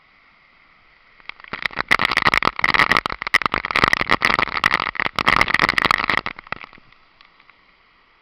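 Loud rush of falling water with crackling on the microphone, swelling about a second in and dying away near the end, over the steady roar of the Sgwd yr Eira waterfall.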